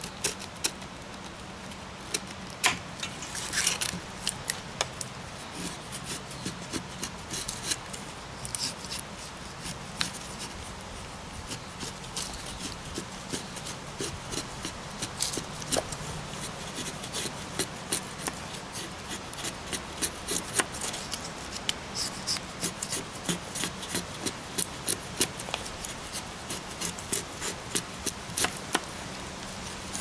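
Knife blade shaving curls off a resin-soaked fatwood stick: a long run of short, irregular scraping strokes that come more often in the second half.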